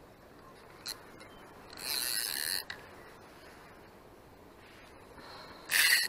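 Fishing reel's clutch ratcheting as line is pulled off, in two short buzzing bursts: the first about two seconds in, the louder one near the end. A single click about a second in.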